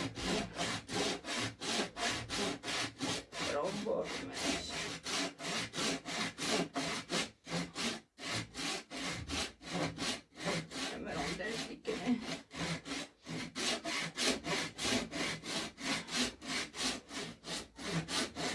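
Rhythmic back-and-forth scraping strokes, about four a second, with a brief break about eight seconds in.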